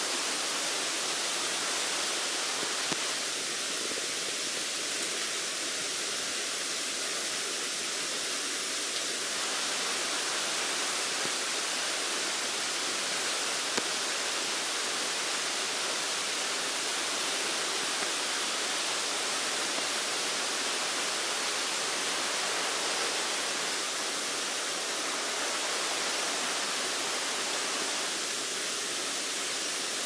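Steady rush of Bambarakanda Falls, Sri Lanka's tallest waterfall: water pouring down a rock face and splashing onto the rocks below.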